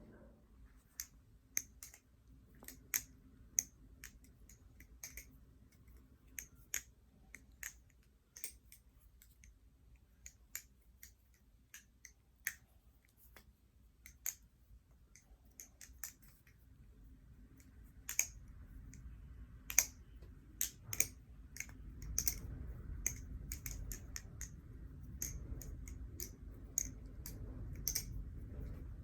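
Theone bamboo-style balisong being flipped: its handles and pins clack in sharp, irregular clicks, at times several a second. A low rumble builds underneath in the second half.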